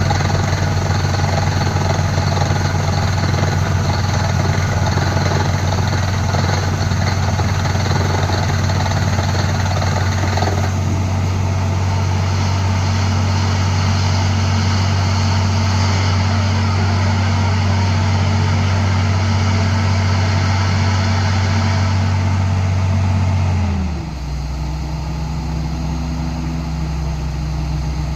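Rock drilling machine running hard under load, with a higher rattling noise over it that fades about ten seconds in. About 24 seconds in, the engine drops in pitch and settles to a slower, steady idle.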